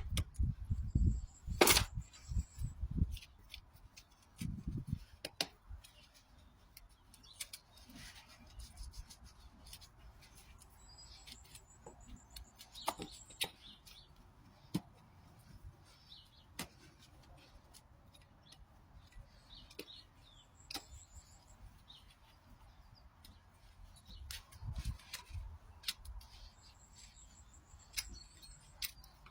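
Hoof trimming on a horse's hoof: sporadic sharp clicks and scrapes from the farrier's tools, with heavier low thumps in the first few seconds and again about five seconds in and near the end. Brief high bird chirps come a few times.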